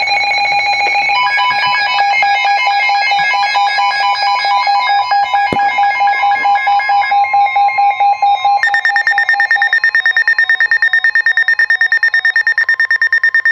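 Weather alert radio alarm tones: rapid electronic beeping in several pitches at once, switching about two-thirds of the way through to a single high-pitched beep pulsing several times a second. The tones announce an incoming severe thunderstorm warning.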